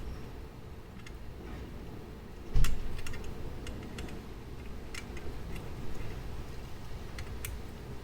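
Scattered small clicks and taps at an uneven pace, like metal parts and tools being handled while working on a grandfather clock movement. There is one louder knock about two and a half seconds in, over a steady low hum.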